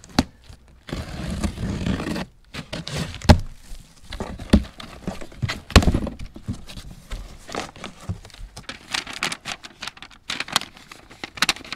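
A cardboard box being opened by hand: strapping and flaps scraping and tearing, then plastic wrapping and a paper instruction sheet crinkling, with scattered knocks.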